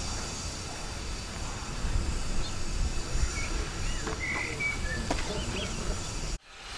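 Outdoor ambience: an uneven low rumble with a few faint bird chirps about halfway through. The sound cuts out abruptly near the end.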